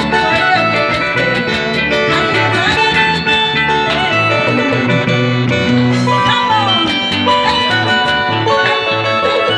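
A live band playing a lively tune: a harp plucking runs over a pulsing electric bass line, with quick, regular cymbal ticks from a drum kit.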